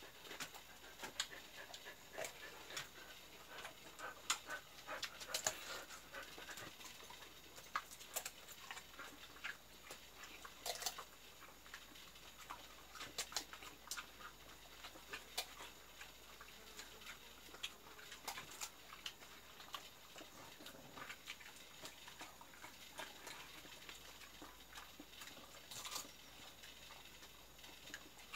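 Jindo dogs eating Korean melon from a hand: many small wet chewing and lip-smacking clicks, with light panting and a few faint whimpers in the first several seconds.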